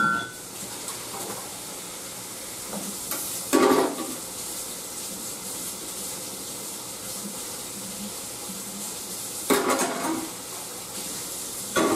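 Bacon frying in a pan with a steady sizzle. Dishes clatter at the sink four times.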